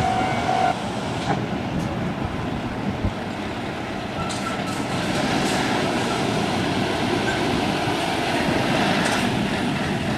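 Heavy double-trailer haul truck driving by, a steady rush of engine and tyre noise.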